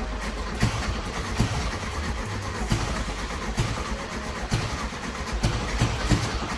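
1971 VW Beetle's air-cooled flat-four engine running unevenly, with a sharp pop or stumble about once a second over a steady low rumble, the sign of its fuel delivery problem.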